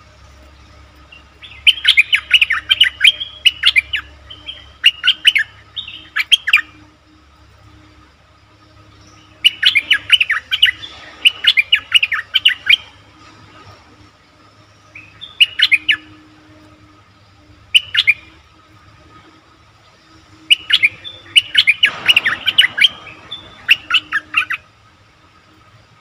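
Bulbul calls used as a lure for wild birds: repeated bursts of rapid chirping notes, some short and some lasting about three seconds, with pauses of a second or more between them.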